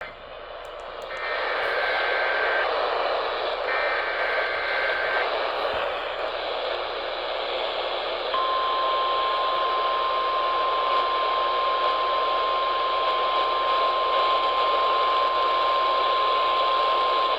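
Emergency Alert System broadcast heard over AM radio static: two short screeching data bursts of the alert header, then a single steady alert tone held for about nine seconds, marking the start of a severe thunderstorm warning.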